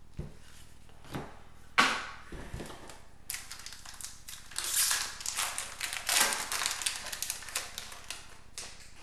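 Hockey card pack wrapper torn open and crumpled by hand, crinkling and crackling for several seconds. Before it come a few light taps and one sharp knock on the table.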